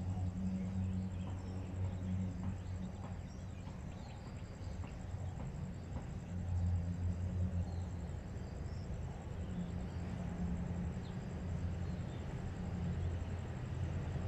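A diesel engine idling as a steady low rumble that swells and fades, with faint bird chirps above it.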